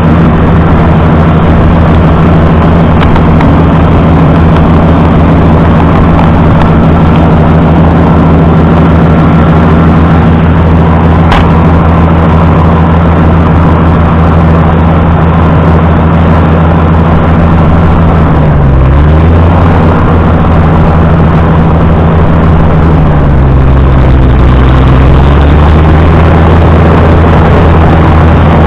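Allis-Chalmers D19 tractor's gasoline engine running steadily, close up. Its speed sags briefly about two-thirds of the way through and again a few seconds later, recovering each time. The engine is fed through a makeshift hose that gets fuel past its plugged gas tank.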